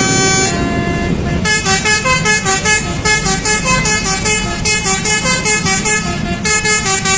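Bus 'telolet' musical air horn playing a tune: a falling run of held notes, then from about a second and a half in a quick string of short notes, about three a second, over a low engine rumble.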